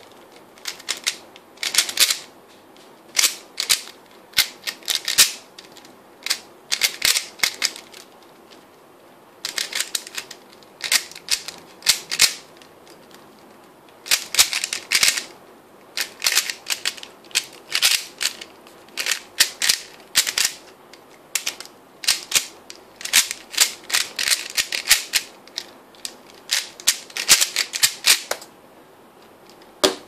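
A 3x3 Rubik's cube being turned fast by hand during a timed solve: quick runs of plastic clicking and clacking as the layers snap round, in bursts of a second or two with short pauses between. The clicking stops near the end as the solve finishes.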